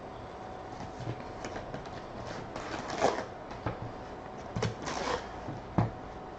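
Hands handling trading-card packs and their cardboard box: scattered rustles and soft knocks as packs are lifted out of the box and stacked, the sharpest knock a little before the end.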